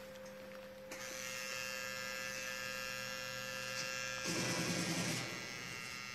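Tattoo machine buzzing steadily, starting about a second in, with a louder burst of noise for about a second past the middle.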